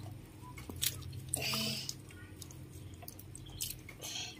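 Water sloshing and dripping in a plastic bath tub as a young monkey moves about in it, with soft wet squishes and small clicks and a brief louder splash about a second and a half in.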